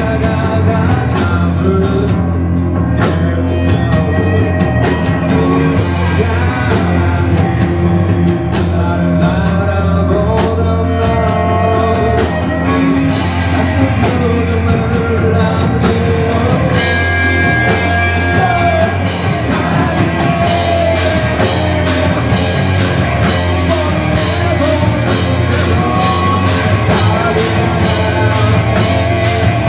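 Rock band playing live, with electric guitars, bass guitar and a drum kit under a male singer's vocals. The cymbals strike steadily and densely from about halfway through.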